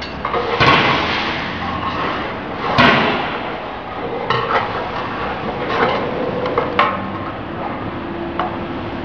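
Metal hand tools knocking and clinking against the steel frame and roller bearing housings of a potato washing-peeling machine as the rollers are being removed. The loudest knocks come about half a second and three seconds in, followed by lighter clicks and scrapes.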